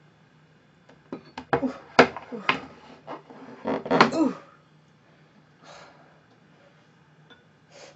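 Heavy wooden serving board loaded with giant sushi set down and shifted on a table: a run of knocks, clatter and a scrape over about three seconds.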